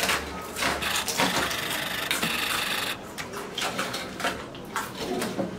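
Potato chips crunching and rustling in bowls as two people eat them straight from the bowls without using their hands. The crunching is dense for about the first three seconds, then comes as separate crunches.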